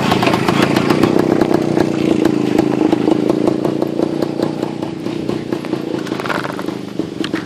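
IZh-49 motorcycle's single-cylinder two-stroke engine running with a rapid, even crackle of exhaust pulses, slowly growing quieter.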